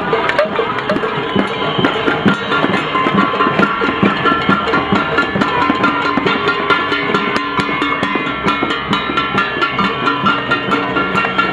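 Crowd banging pots and pans in a cacerolazo protest: a dense, continuous clatter of sharp metal strikes with ringing tones mixed in.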